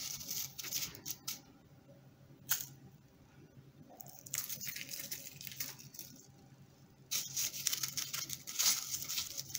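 Fingers rolling a sweet in dry grated coconut in a plastic bowl: a crisp, scratchy rustle that comes and goes, with one sharp click about two and a half seconds in. The rustling thickens again about seven seconds in.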